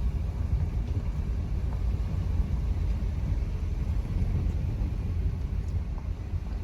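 Car being driven at a steady pace: a steady low rumble of engine and road noise.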